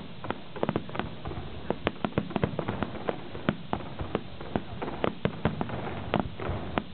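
Fireworks crackling and popping: a rapid, irregular series of sharp cracks, several a second, over a steady hiss.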